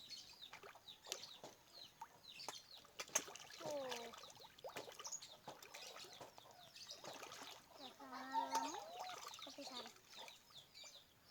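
Scattered light water splashes and drips at a catfish pond, with chickens clucking nearby and a couple of falling calls about four and eight seconds in.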